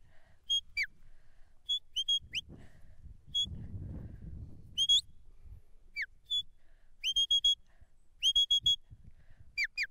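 A sheepdog handler's whistle giving commands to a working border collie. It is a string of short, sharp whistle notes, some gliding up and some falling, with two quick runs of four or five pips in the second half.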